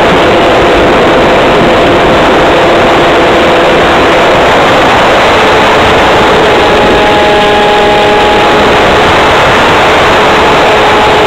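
Model airplane's motor and propeller heard through a wing-mounted camera's microphone: a loud, steady drone under heavy wind noise, its pitch shifting several times as the plane flies.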